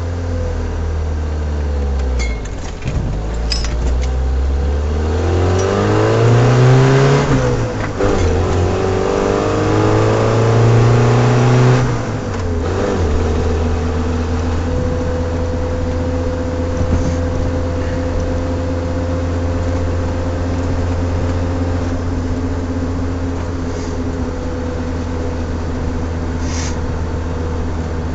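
AMC 150 inline-four with a Weber 38/38 carburettor, on a fairly cold engine, idling and then revved hard twice, each time climbing over a few seconds and falling back, the second time dropping sharply about twelve seconds in. After that it settles into a steady idle.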